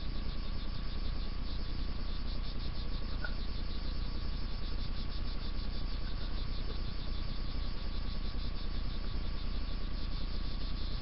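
Crickets chirping steadily in fast, even pulses over a low, steady outdoor rumble.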